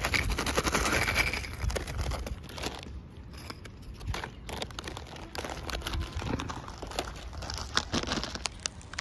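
Plastic biscuit packet crinkling as it is handled, with scattered crackles and light clicks; loudest in the first two seconds.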